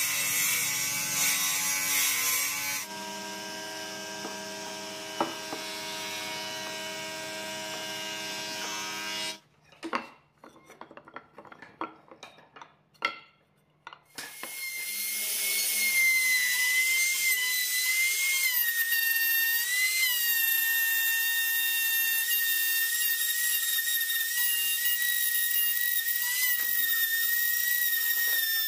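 Makita compact trim router starting up about halfway through and running steadily with a high whine as it cuts along the edge of a pine board. Before it comes a steady machine noise with a humming tone, then a few seconds of scattered wooden knocks as pieces are handled.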